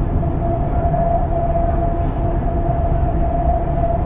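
Shanghai Metro 07A02 electric multiple unit running at a steady speed, heard from inside the car: a constant low rumble with a steady whine of unchanging pitch.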